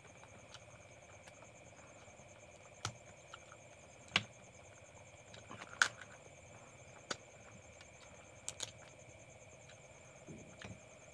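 Cooked crab shells cracking as they are pulled apart by hand and bitten: a handful of sharp, separate cracks, the loudest about four and six seconds in, over a faint steady background hum.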